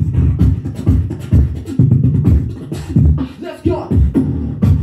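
Solo beatboxing into a handheld microphone: deep kick-drum and bass sounds with sharp snare and hi-hat clicks in a fast, dense rhythm, and a short pitched vocal glide about three and a half seconds in.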